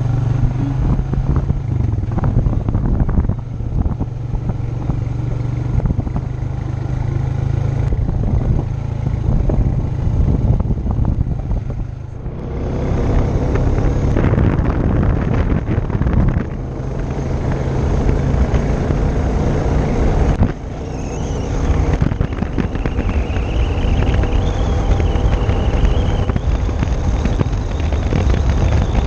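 Four-wheeler (ATV) engine running while riding a dirt trail, with a steady low hum for the first twelve seconds or so, then a rougher, noisier rumble, briefly dipping about twelve and twenty seconds in.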